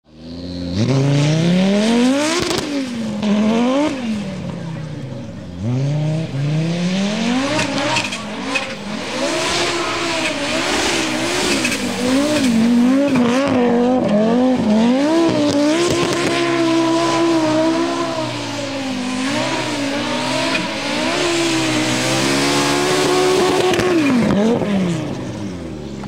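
1985 Audi Sport Quattro S1 E2's turbocharged five-cylinder engine revving hard as the car slides on grass with its wheels spinning. The revs climb and drop sharply several times in the first seconds, then stay high and waver up and down for a long stretch, with a few sharp cracks. Near the end they fall back toward idle.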